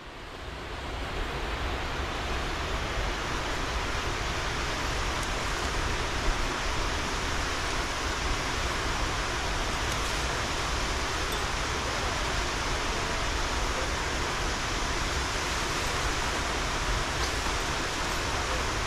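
Steady rushing of a waterfall, fading in over the first second or so and then holding even.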